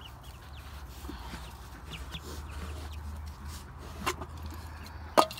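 Poultry clucking in short scattered calls over a steady low hum. Two sharp knocks come about four and five seconds in, the second the loudest.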